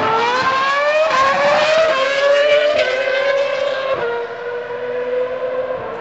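Racing car engine at full throttle, accelerating up through the gears: the pitch climbs, drops at each upshift about once a second, four times, then holds a steadier, slightly quieter tone.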